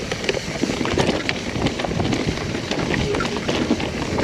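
Mountain bike riding down a dirt singletrack trail: a steady rush of knobby tyres rolling over dirt and roots, with frequent clicks and knocks as the bike rattles over bumps.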